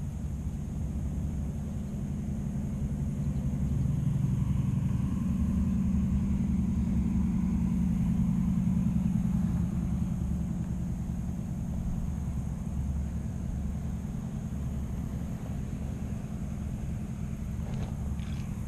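Low engine rumble of a passing motor vehicle, building about four seconds in and easing off after about ten seconds.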